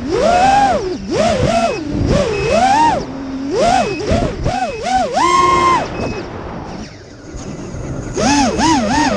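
FPV quadcopter's electric motors and propellers whining, heard from the camera on board; the pitch swoops up and down every half second or so as the throttle is worked, with a short lull about seven seconds in before it picks up again.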